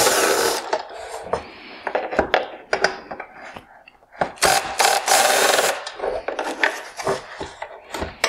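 Ryobi cordless drill with a long driver bit backing screws out of the plastic headlight housing. The drill runs in two spells of about a second each, one at the start and one about halfway through. Between them the bit and the plastic housing click and scrape.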